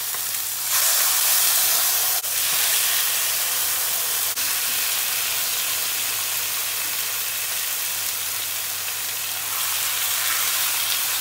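Marinated chicken thigh pieces sizzling loudly as they fry skin side down in a hot frying pan, the sizzle swelling about a second in as more pieces go into the pan. Two brief dips break the sizzle near the start.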